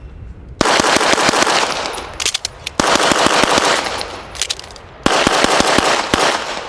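Handgun fired rapidly in three quick strings of shots, each lasting one to one and a half seconds, with short pauses between, during a timed practical-shooting stage.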